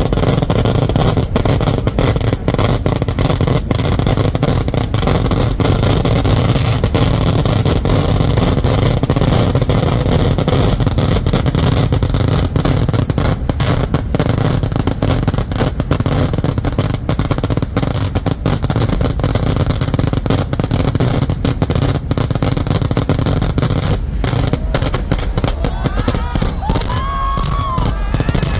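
Continuous fireworks barrage: dense, rapid cracks of exploding firecrackers over a steady low rumble of booms, with no break. Near the end a brief wavering tone rises and falls above the blasts.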